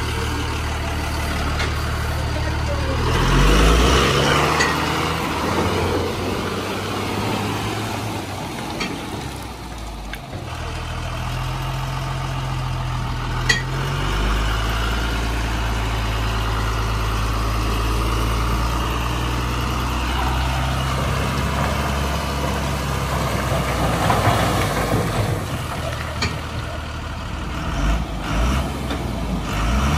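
Tata 1618 4x4 tipper's diesel engine working under load as the truck struggles through deep mud. It revs up a few seconds in, drops back briefly around ten seconds, then pulls steadily. There is a single sharp click partway through.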